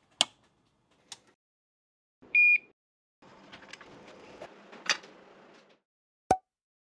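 Bench test equipment being powered up. A rocker power switch clicks on, a short high-pitched electronic beep sounds about two seconds later, and then a few seconds of soft hiss end in one sharp click.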